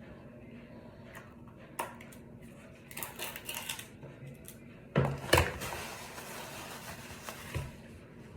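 Small cosmetic containers, a lip scrub jar among them, being handled: a click, a spell of scratchy rubbing, then two sharp knocks about five seconds in. A longer hissing scrape follows, and one more knock near the end.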